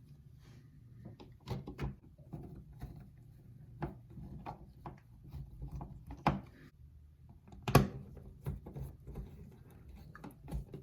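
Scattered small clicks and knocks of hands fitting a newly wired GFCI receptacle into its wall box. The sharpest knock comes about three-quarters of the way through.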